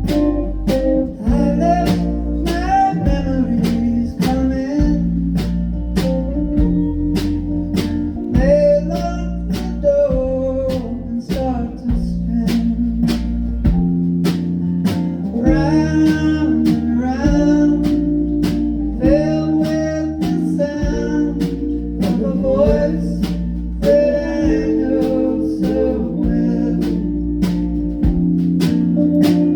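A live band playing a slow blues-country song: guitar and bass over a steady beat, with a voice singing the melody.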